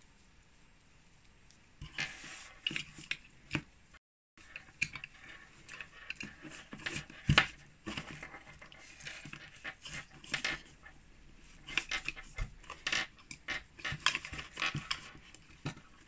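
Hands packing a network cable and small accessories into a mesh drawstring pouch: irregular rustling with clicks and light knocks of plastic on a tabletop, starting about two seconds in.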